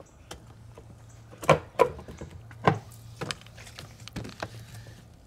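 Sharp knocks and clicks of hard plastic being handled: a removed RV toilet and a spray bottle of cleaner. They come at irregular spacing, the loudest about a second and a half in.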